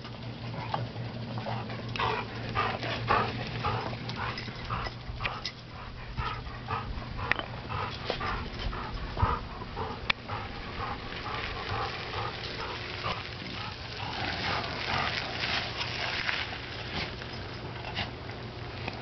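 A dog panting hard in quick, even breaths, worn out after exercise.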